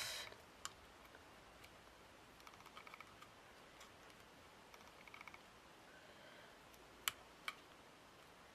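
Near silence with faint clicks and small rattling ticks from scissors snipping and handling a diamante trim; two sharper clicks come near the end.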